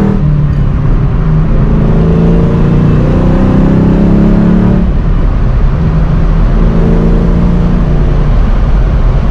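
1986 Mustang GT's 5.0 V8 accelerating through the gears. The engine note climbs, falls sharply at a gear change right at the start and again about five seconds in, then climbs once more.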